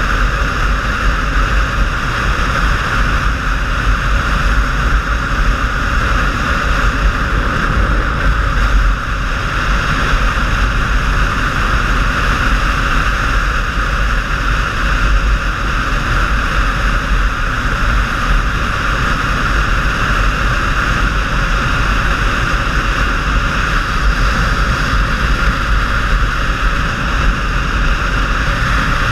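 Steady wind rush over a helmet-mounted camera with a motorcycle's engine and tyre noise underneath, riding at a constant speed: a loud, unchanging rush with a deep low rumble.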